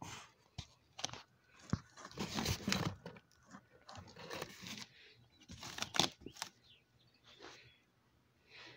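Cardboard being handled and rubbed close to the microphone: irregular scraping, rustling and crinkling broken by sharp knocks, with louder stretches about two seconds in and about six seconds in.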